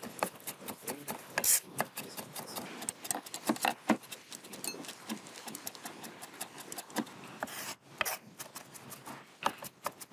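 Kitchen knife chopping on a wooden cutting board, dicing cocona fruit and red onion: a quick, irregular run of sharp knocks.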